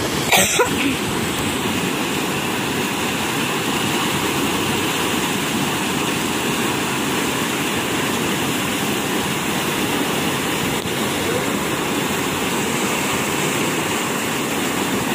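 Steady rushing of canal water flowing through the concrete structure where the fish net is held, with a brief louder sound just after the start.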